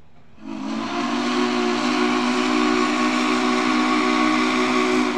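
Steam whistle of Spokane, Portland and Seattle steam locomotive No. 700, blown in one long, loud blast. It starts about half a second in and sounds as a steady chord of several tones over a rush of steam.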